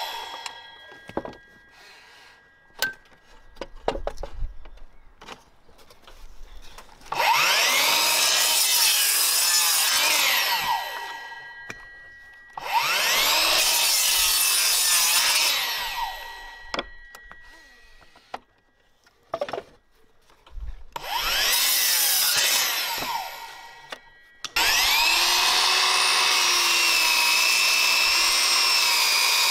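Metabo KGS 18 LTX 216 cordless sliding mitre saw cutting timber. Three times the blade spins up, cuts and winds down, with knocks and handling between the cuts. Near the end it runs steadily through a longer cut.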